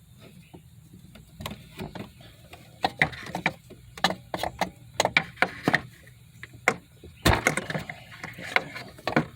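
Irregular clicks, knocks and scrapes of hands and tools working an engine-bay hose loose, some sharp with a short ring.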